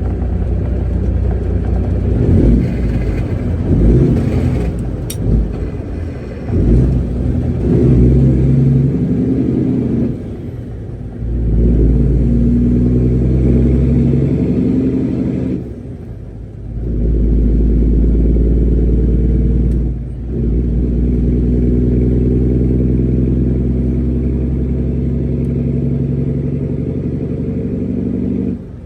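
Semi-truck diesel engine running under changing load, its note rising and falling several times with short lulls between, as the truck is driven and manoeuvred.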